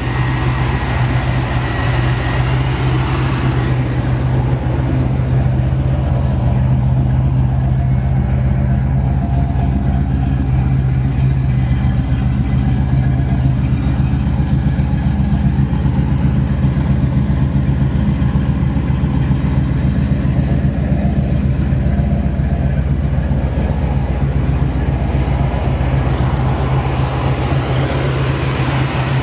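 Freshly rebuilt 427 big-block V8 idling steadily, with an even, fast pulsing exhaust note.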